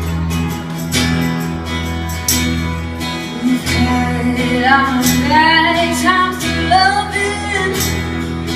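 Song with strummed acoustic guitar and steady bass notes; about three and a half seconds in, a female voice comes in singing a wordless melody over it.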